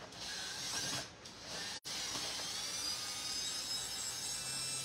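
Cordless drill/driver running, a steady high motor whine, as it backs screws out of the plastic inner liner of a Vendo 81 soda machine door. It runs for about a second, stops briefly, then runs steadily through the rest.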